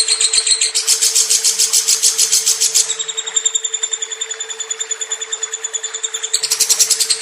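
Lovebird singing one long, unbroken rapid trill of high chirps, about ten a second, louder at the start and again near the end, with a steady low hum underneath.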